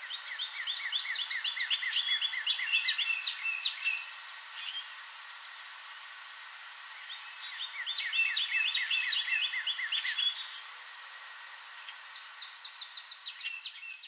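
Common grackle calling: two bouts of rapid, evenly repeated chirps, each with a sharp squeaky note in it, and a fainter run of chirps near the end.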